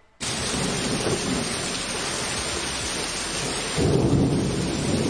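Heavy storm rain and wind, a dense steady hiss that starts suddenly, with a louder, deeper rumble swelling about four seconds in.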